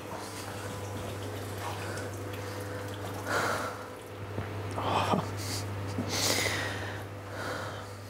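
A man breathing out heavily in four slow sighs, over a steady low hum.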